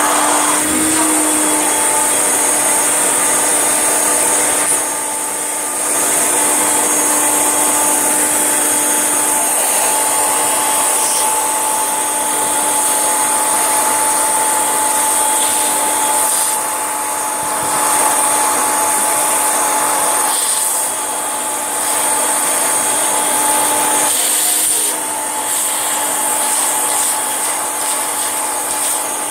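Tesco own-brand 1800 W bagless upright vacuum cleaner running steadily with a motor hum, a whine and a strong high hiss of air, its sound dropping briefly three times.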